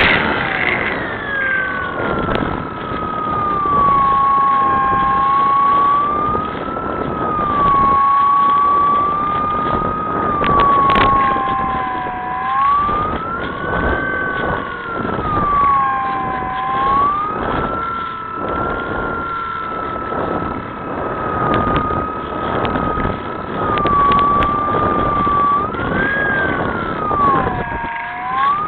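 Electric motor and propeller of a Skyartec Cessna 182 radio-controlled model plane whining in flight, its pitch wavering up and down, with gusting wind buffeting the microphone.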